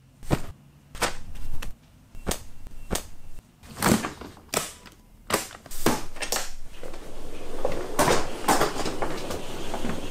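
Hard-shell suitcase being shut and handled: a run of about ten sharp clicks and knocks over the first six seconds, then a steadier rumbling scrape with a few louder knocks.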